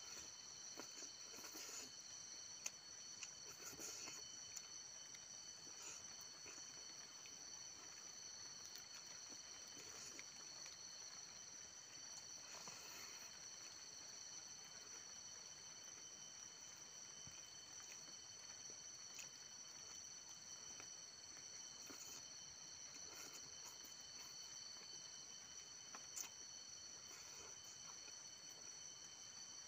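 Quiet: a faint, steady, high insect chirring, with occasional soft chewing and mouth clicks from someone eating by hand.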